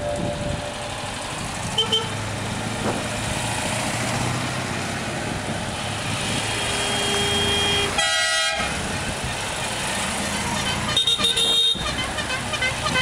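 Citroën 2CV-family cars drive past one after another, their air-cooled two-cylinder engines running. A few horn toots sound, one about two seconds in, a longer one around the middle and another near the end.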